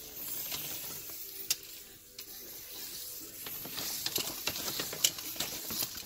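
A yellow fish tape being pulled back through a wall cavity, scraping and rustling against the pipe and the paper-faced insulation, with scattered sharp clicks.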